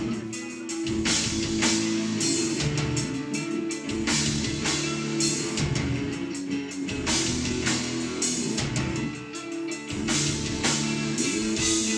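A rock band playing live: electric guitars and a drum kit keeping a steady beat.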